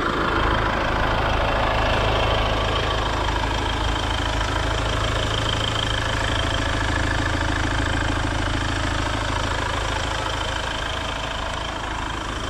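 Land Rover Defender's 2.0-litre four-cylinder Ingenium turbodiesel idling steadily, heard close up in the open engine bay.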